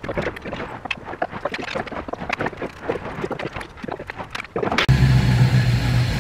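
Small irregular clicks and taps of hand work in the engine bay. About five seconds in, a freshly rebuilt 351 Windsor (5.8 L small-block Ford V8) starts running at a steady idle.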